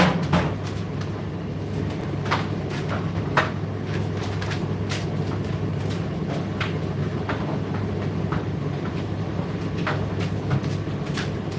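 Indesit IDC8T3 condenser tumble dryer running, with a steady hum from the motor and turning drum. Irregular light clicks and knocks come through it as the load tumbles.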